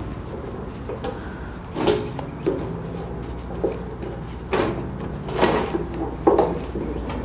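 Rubber grommet being pushed and worked by hand into the filler-neck hole of a new metal gas tank: about half a dozen irregular short knocks and rubbing sounds, spread over the middle and later part.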